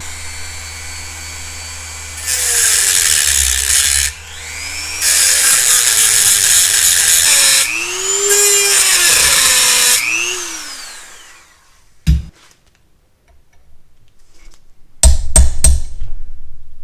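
Power cutting tool run in three bursts as it cuts into a seized acorn nut on a cylinder stud, its motor pitch rising and falling with each burst. Afterwards there is one knock, then three or four sharp knocks near the end.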